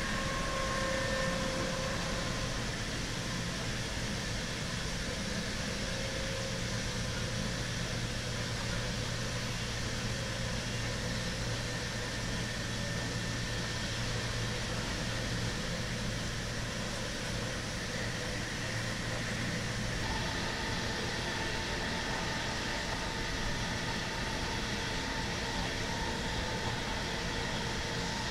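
Steady running noise of an intercity train at speed, heard from inside the passenger coach coupled behind a DB Class 101 electric locomotive: an even rumble and hiss of wheels and air. Faint steady tones from the locomotive's Adtranz/ABB Micas-S GTO traction inverter sound over it, with a low hum that stops about two-thirds of the way through.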